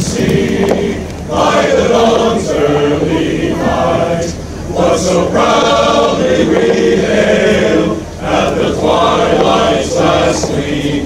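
A men's chorus singing together, in long sustained phrases with short breaks between them.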